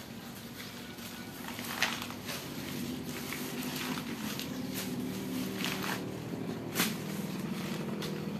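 A motor running steadily, its low hum wavering slightly in pitch, with several sharp clicks over it, the loudest about two seconds in and again near the end.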